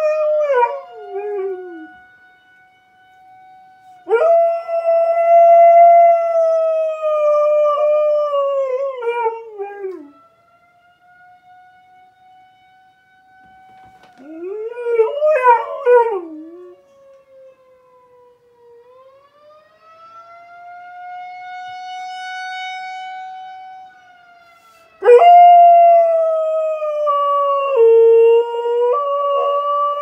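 A dog howling in several long, loud howls that fall in pitch at their ends, answering an outdoor tornado warning siren. Between the howls the siren is heard more faintly as a steady wailing tone that slowly sinks in pitch and rises again midway.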